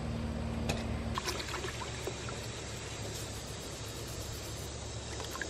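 Water sloshing and trickling in a metal washtub as hands wash and scrub small metal parking-meter parts under water, with a couple of light clinks about a second in.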